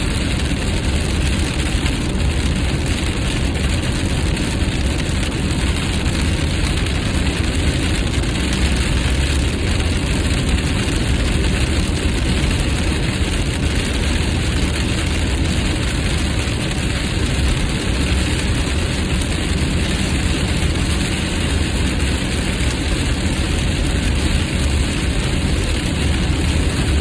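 Steady road rumble and tyre-and-wind noise inside a car cabin at highway speed in the rain, a constant low drone without change.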